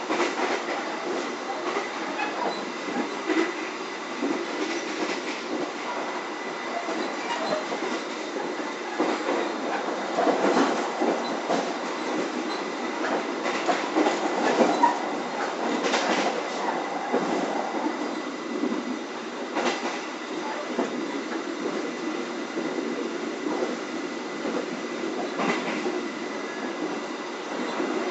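Running noise inside an Indonesian K3 economy passenger coach at about 95 km/h: a steady rumble and hiss of wheels on rail, broken by occasional sharp clacks from the track.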